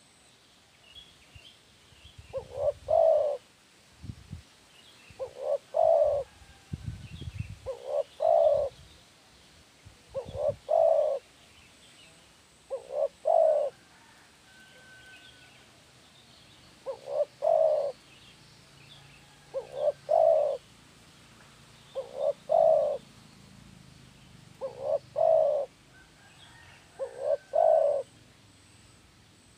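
Spotted dove cooing: a short note followed by a longer one, repeated about every two and a half seconds, some ten times. Faint chirps of small birds sound behind it, with a few low thuds in the first several seconds.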